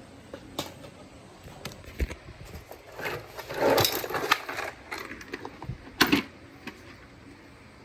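Handling noises from working Kydex and tools by hand: scattered clicks and taps, a rustling scrape about three and a half seconds in, and a sharp knock about six seconds in.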